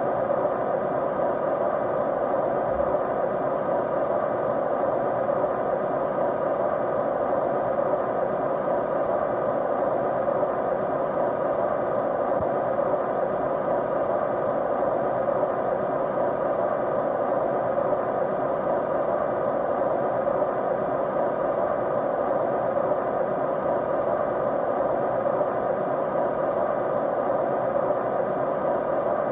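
Steady, unchanging white noise, even throughout, with faint steady tones running through it.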